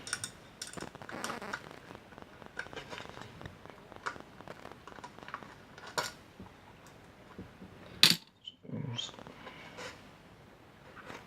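Small metal tools and parts clinking and clattering as they are handled and rummaged through, with a sharp knock about eight seconds in.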